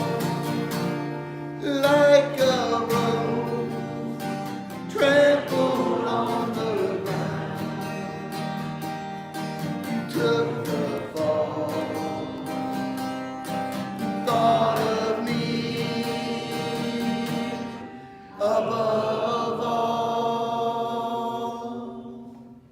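Gospel worship song: singing with guitar accompaniment and long held notes, fading out near the end.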